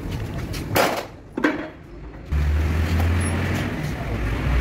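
Two short knocks about a second in, then a steady low engine hum that starts abruptly about two seconds in and becomes the loudest sound.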